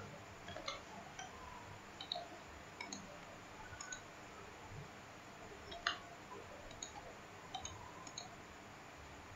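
Computer mouse clicking, about a dozen short clicks spread irregularly, the loudest about six seconds in, over a faint steady hiss.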